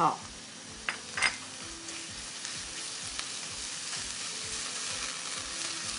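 Spicy chili bean paste with minced ginger and garlic sizzling in hot oil in a wok while a spatula stirs it, with a couple of light scrapes of the spatula on the pan about a second in. The sizzle grows slightly louder as the paste fries.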